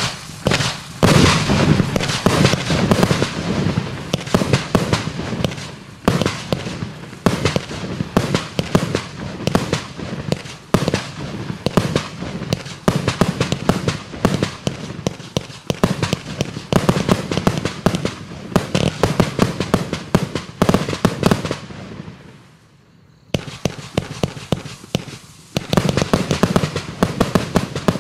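Climax Fireworks 'Red Ghost' firework cake firing shot after shot, its bursts breaking into dense rapid crackling. The firing drops to a short lull about 22 seconds in, then starts again.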